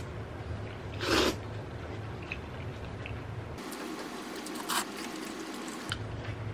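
Glass noodles being slurped from a spicy fish-cake broth: two short wet slurps, one about a second in and one near the middle.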